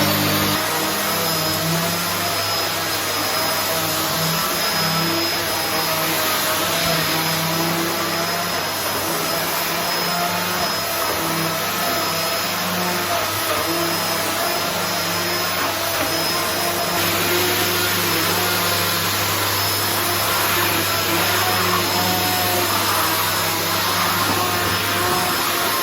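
Paper-bag vacuum cleaner running steadily, with an even high whine over its airflow noise.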